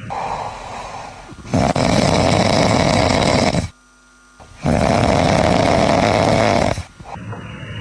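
Two long, loud snores, each about two seconds, with a short break between them: the sleeping lion's snoring in a children's stage play.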